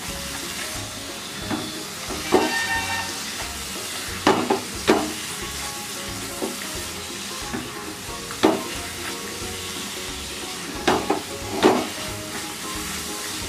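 A spatula stirring thick, nearly finished carrot halwa in a nonstick kadai, over a steady sizzle from the ghee-rich mixture cooking. The spatula scrapes the pan sharply now and then, about eight times.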